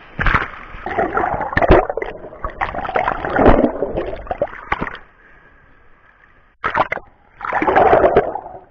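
Sea water splashing and sloshing in irregular bursts, with a lull of about a second and a half past the middle.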